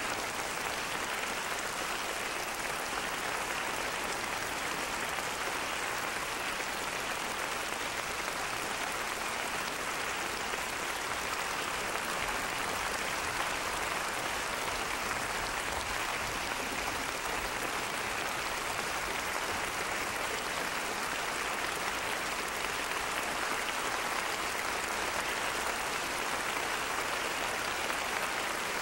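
Concert audience applauding steadily: dense, even clapping with no breaks.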